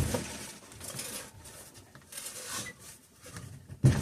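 Faint scraping and rustling as a stiff old Kohler opposed-twin engine is turned over by hand against compression, with a sharp knock just before the end.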